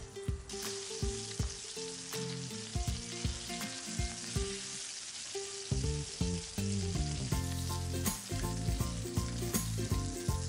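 Paprika-rubbed chicken pieces searing in olive oil in a ceramic pan, sizzling steadily with scattered small pops.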